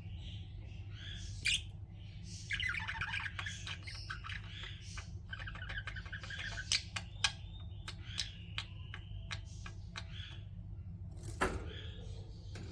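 Budgerigars chattering: a dense stream of warbling chirps and squawks, with several sharp clicks mixed in, the loudest near the end, over a steady low hum.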